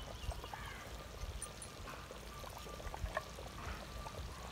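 Thick mutton curry bubbling at the boil in a clay pot, with scattered soft pops of bursting bubbles over a faint low rumble. The curry is coming back to the boil after a roasted spice powder was stirred in, the last boil before it comes off the fire.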